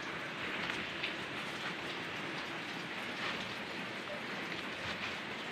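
Steady rain, an even hiss with scattered faint drop ticks.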